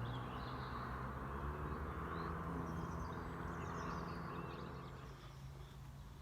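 Faint lakeside ambience: small birds chirping now and then over a soft hiss and a low steady hum.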